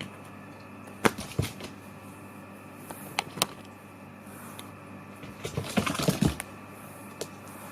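Scattered sharp clicks and knocks, a couple about a second in and a couple around three seconds, then a quick flurry of them near six seconds, over a steady background hum.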